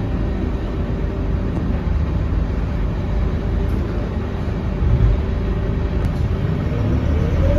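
Scania K230UB city bus heard from inside the cabin while moving: a steady low drone from its 9-litre five-cylinder diesel and drivetrain. Near the end the engine note starts to rise as the bus picks up speed.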